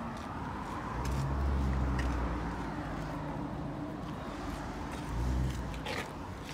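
Outdoor city background picked up by a phone microphone: a steady hum and hiss, with a low rumble swelling about a second in and again shortly after five seconds, and a few light clicks near the end.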